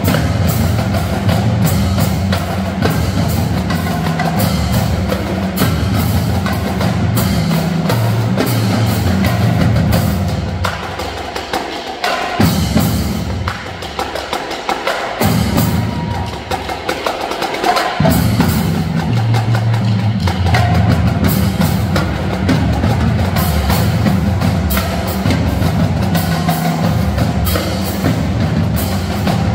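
High school marching drumline playing a cadence: snare drums, tenor drums, pitched bass drums and crash cymbals. The bass drums drop out for several seconds near the middle, leaving the snares and tenors, and then the full line comes back in.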